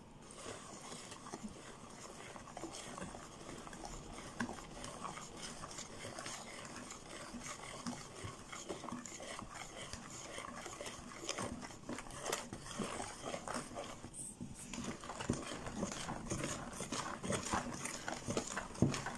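Wire balloon whisk beating cake batter in a plastic mixing bowl: quick, uneven clicks and scrapes of the wires against the bowl, with a brief pause about two-thirds of the way through and growing louder near the end.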